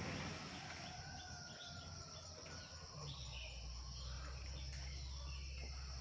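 Outdoor wildlife ambience: a steady high insect drone with a few faint bird chirps. A low rumble on the microphone comes in about halfway through.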